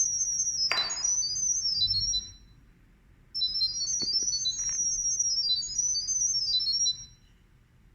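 Rapid sequences of short, high-pitched electronic chirping tones from a smartphone app's sound-wave Wi-Fi pairing signal, carrying the network name and password to the camera. They come in two runs of about three seconds with a pause of about a second between, and there is a brief noise burst about a second in.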